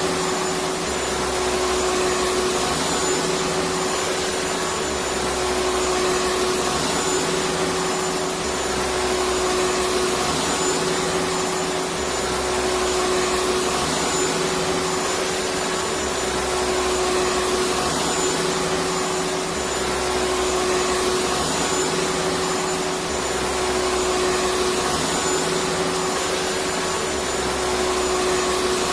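Electric vacuum cleaner running continuously: a steady rushing hiss with a constant humming tone, swelling slightly about every four seconds.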